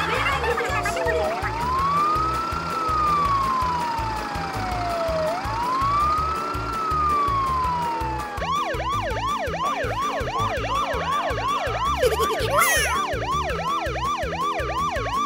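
Siren sounding a slow rising-and-falling wail, switching about eight seconds in to a fast yelp of about three sweeps a second, with background music under it.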